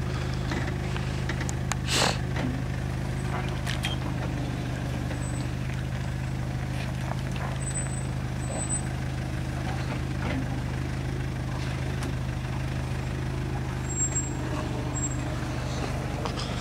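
Mitsubishi Pajero engine running steadily at low revs during an off-road crawl, with a few sharp knocks over it, the loudest about two seconds in.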